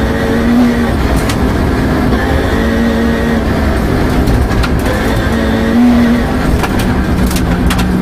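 Peugeot 306 rear-wheel-drive rally car engine at high revs on a gravel stage, heard from inside the cabin, its note breaking and changing every second or so. Sharp clicks and knocks come through, most of them near the end, as gravel flicks against the car's underside.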